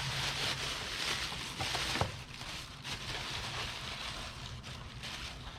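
Rustling and handling noise of wrapping as small Christmas figurines are unpacked from a box, loudest in the first two seconds, with a sharp tap about two seconds in. A low steady hum runs underneath.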